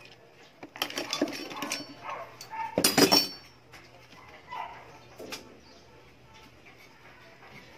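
Metal clinks and knocks of hand tools and transmission gear-shaft parts being handled on a workbench. A clatter comes about a second in, the loudest clank with a brief ring about three seconds in, and then a few lighter taps.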